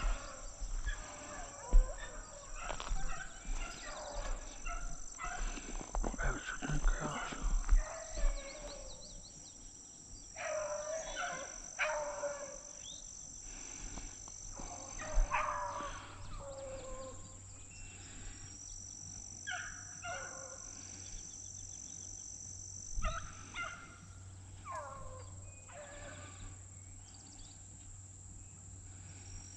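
Beagles baying on a rabbit's trail: a run of drawn-out howling cries, each one dropping in pitch, coming every second or few. It is the pack's trail cry while running a rabbit.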